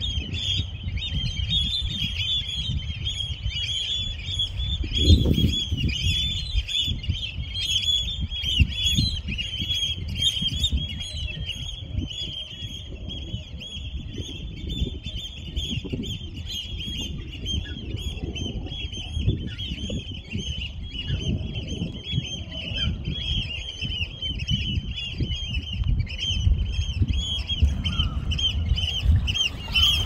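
A dense, continuous chorus of many small birds chirping rapidly and high-pitched, over a low, gusty rumble.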